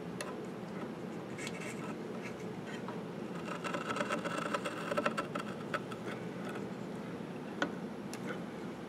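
Faint scraping and light clicks of a compass-type stringing cutter, its small brass-mounted blade set against the wooden leg and drawn to scratch the arc groove for stringing. There is one sharper click near the end, over steady low shop hum.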